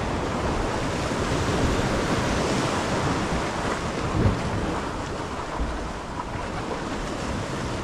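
Surf washing against jetty rocks with wind buffeting the microphone: a steady rushing noise, with one short knock about halfway through.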